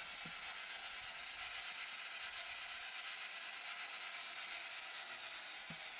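A steady, faint hiss of background noise, with a small soft tap just after the start and another near the end.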